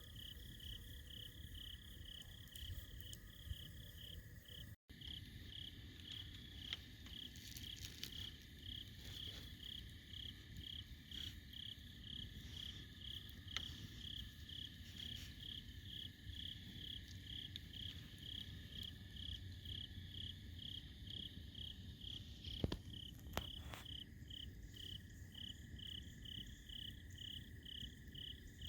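Campfire crackling faintly with a few sharp pops, under a steady high-pitched chirping that pulses about twice a second.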